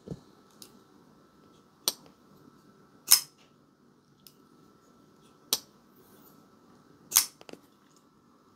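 Titanium frame-lock folding knife on a bearing pivot being flipped open and shut: a handful of sharp, separate clicks as the blade snaps out into lockup and back into its detent, the loudest about three seconds in and near the end, with a quick double click near the end.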